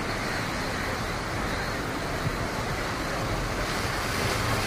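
Floodwater rushing and churning as an SUV wades through it, a steady washing noise that grows slightly louder toward the end, with wind on the microphone.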